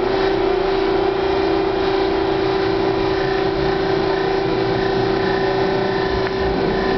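Hawker-Siddeley H5 subway car running along the track, heard from inside the passenger cabin: a steady rumble with a steady low whine that cuts off near the end. A fainter high whine joins about halfway through.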